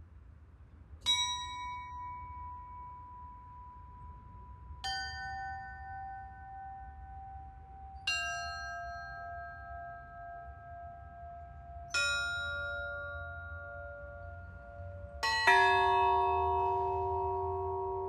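Russian Orthodox church bells struck one at a time, about every three to four seconds, each bell lower in pitch than the one before and each left to ring on. Near the end two bells are struck almost together, and the lowest, loudest bell rings out.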